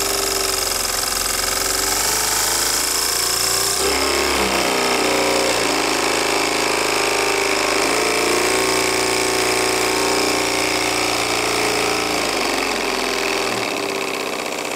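A Bowman-Bryant BM valveless model steam engine, about 1948, racing at high speed on full steam with a fast, even mechanical buzz over a steam hiss. Its speed shifts about four seconds in, and it slows near the end as the steam is eased off.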